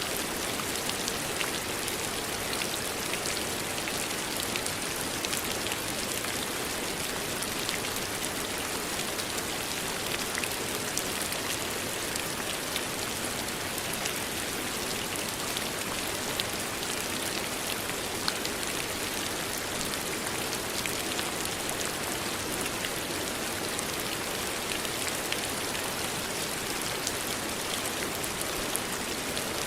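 Steady rain falling, with many fine drop ticks over an even hiss.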